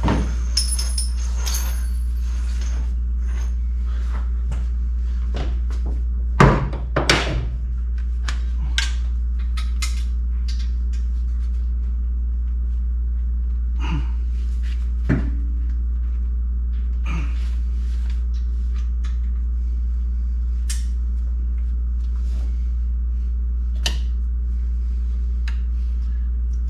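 Scattered sharp metal knocks and clinks of a wrench working exhaust header bolts, the loudest cluster about six seconds in, over a steady low hum.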